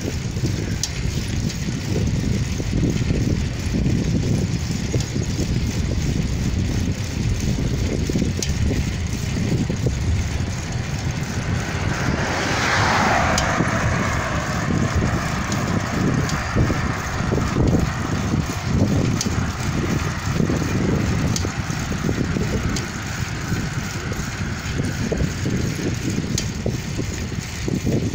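Wind buffeting the microphone of a moving rider, a steady low rumble. About twelve seconds in, a car overtakes: its noise swells and drops in pitch as it passes, then fades ahead.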